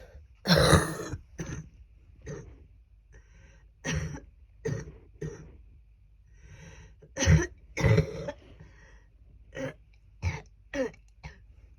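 A woman with a cold coughing in repeated bouts, about a dozen wet, phlegmy coughs mixed with throat clearing and breaths drawn between them. The loudest coughs come about half a second in and again around seven to eight seconds.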